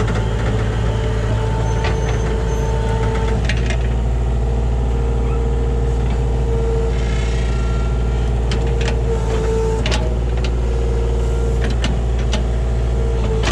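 Kubota KH-60 mini excavator's diesel engine running steadily under load, with a steady whine over it and several sharp knocks as the bucket works a large stump.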